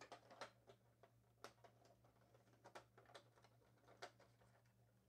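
Near silence: faint, scattered clicks of a plastic Toy Biz Joker Van toy being handled, over a low steady hum.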